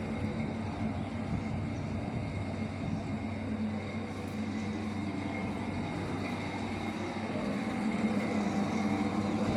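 A steady mechanical rumble with a faint constant hum, growing a little louder near the end.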